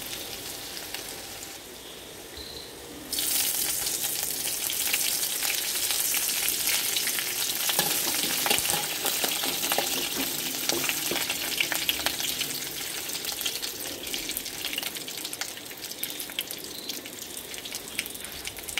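Chopped ginger sizzling in hot coconut oil in an aluminium kadai; about three seconds in the sizzle jumps suddenly louder as fresh curry leaves hit the oil, then keeps crackling and spattering while a metal ladle stirs and scrapes the pan.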